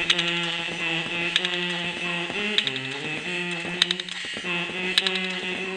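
A beatboxer humming a sustained note while making sharp percussive clicks in a regular beat, about one every second and a quarter. The hummed note dips lower briefly about halfway through.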